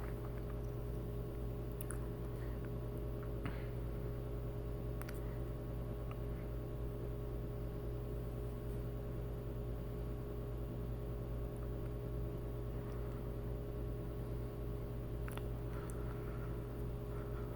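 Background noise of the recording: a steady low electrical hum, with a few faint clicks scattered through it.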